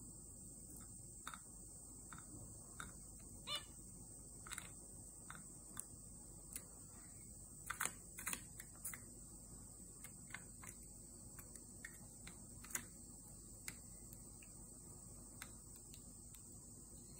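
A young zebra finch pecking at seeds in a clear plastic foraging box: irregular, quick beak taps and clicks on the plastic and seeds, a cluster of louder taps about eight seconds in.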